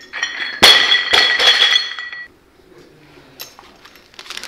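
Loaded barbell with bumper plates dropped from overhead onto a lifting platform after a jerk: a heavy thud, a second bounce about half a second later, then the bar and plates ringing and rattling for about a second.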